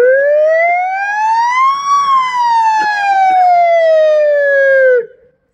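A person's voice imitating an ambulance siren into a microphone. One long wail rises for about two seconds, falls slowly, and cuts off sharply near the end.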